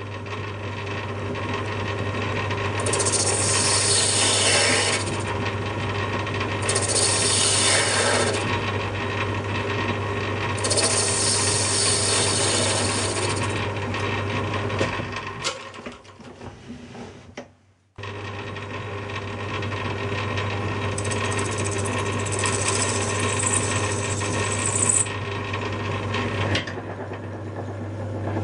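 Metal lathe running steadily with a low motor hum and gear whine while a turning tool cuts the rim and face of a small cast flywheel. Four passes, each a few seconds long, add a high-pitched scraping cutting noise. The running sound drops away and breaks off briefly just past the middle.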